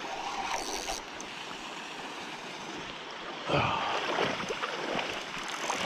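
Shallow river water running and lapping close to the microphone, with louder irregular splashing and handling noise starting about halfway through.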